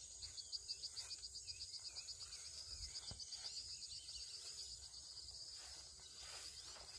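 Faint insects chirping in a fast, even pulse, high-pitched, fading after about four seconds, over a steady higher insect hum. A low rumble runs underneath.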